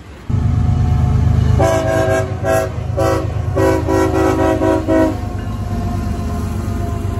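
Diesel freight locomotive passing close, its engine a steady low rumble, while its multi-note air horn sounds a run of short and longer blasts for about three and a half seconds in the middle.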